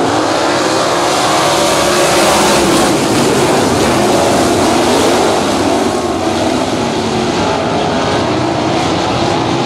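A pack of 360 sprint cars racing, many V8 engines at full throttle with their notes overlapping and wavering in pitch. It is loudest in the first half and eases a little about six seconds in.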